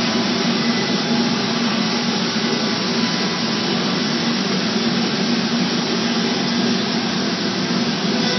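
Biesse CNC router running, a steady unbroken machine whir and rush with a low hum underneath.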